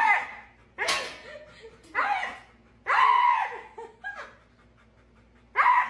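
Husky vocalizing in a string of short, pitch-bending yowls, about one a second, with a longer call about three seconds in.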